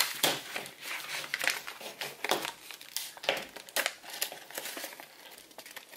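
Folded paper airplane rustling and crinkling in short irregular crackles as it is handled and slid into the clip of a small plastic propeller module.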